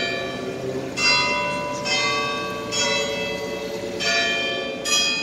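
Bells ringing, struck about once a second, each stroke ringing on into the next.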